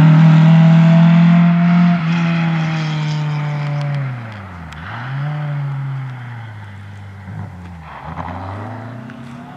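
VW Beetle rally car's air-cooled flat-four engine at high revs, easing off about two seconds in, then the revs drop low for a tight corner around the middle and climb again as it pulls away, with a second dip near the end. The sound fades as the car moves away.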